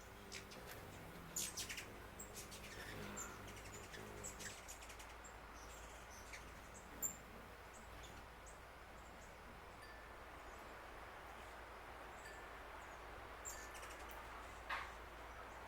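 Wild birds giving scattered short chirps and calls over a steady outdoor background hiss. The loudest chirp comes about seven seconds in.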